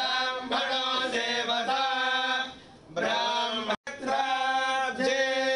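Male voices chanting Vedic mantras in held, sung phrases of a Vedic blessing (vedashirvachanam). The chant drops away briefly about three seconds in, cuts out for an instant just before four seconds, then resumes.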